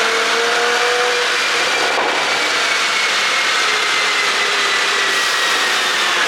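Porsche Cayenne Coupe on the move, a loud steady rush of road and wind noise over an engine tone that slowly falls in pitch as it eases off.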